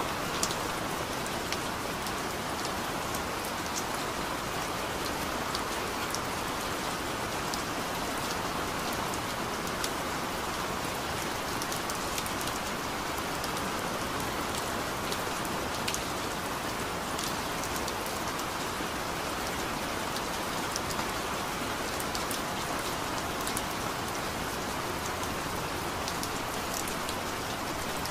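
Steady rain with scattered sharp drip ticks, an even unbroken hiss that holds the same level throughout.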